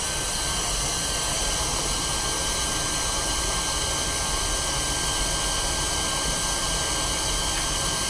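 Vacuum cleaner motor running steadily, a high whine over rushing air, drawing through a paper dust bag packed full; suction is considerably reduced.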